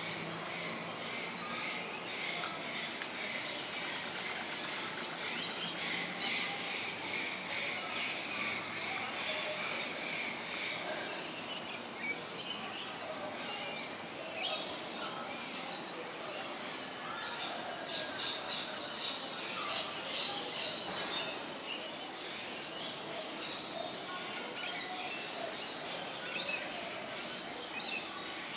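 Birds chirping and calling, many short high calls overlapping in a dense chorus over a steady outdoor background hiss.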